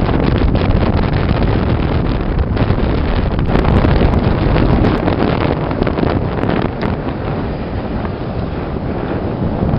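Loud wind buffeting the microphone, a dense rushing noise heaviest in the low end, easing slightly near the end.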